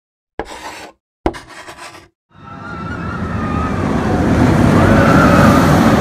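Intro sound effects: two short sharp hits, each dying away within a second, then a rushing noise that starts about two seconds in and swells steadily louder, with faint wavering tones over it.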